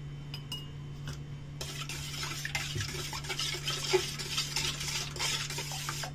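Metal spoon stirring warm milk in a stainless steel bowl, scraping and clinking against the sides to dissolve sugar and salt. A few light taps come first; the steady stirring starts about one and a half seconds in.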